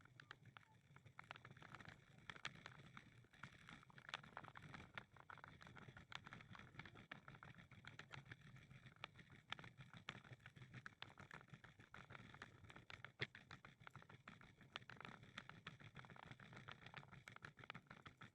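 Faint, irregular clicks and taps of walking on a paved path, over a low steady hum.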